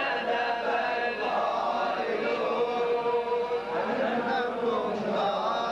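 Large crowd of men chanting a Shia Muharram mourning lament (latmiya) together, led by a reciter.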